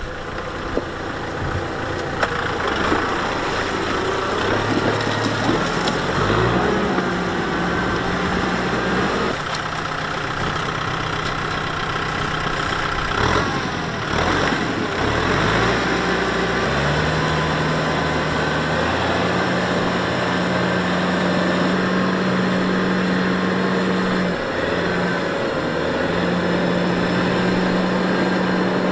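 Kubota M6040 SU tractor's four-cylinder diesel engine running under load as it pulls a disc harrow through wet paddy mud. Its pitch shifts up and down several times, then settles into a steady note for the last third.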